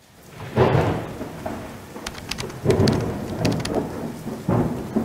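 Thunderstorm: three deep rolls of thunder about two seconds apart over a steady hiss of rain with scattered crackles, fading in from silence at the start.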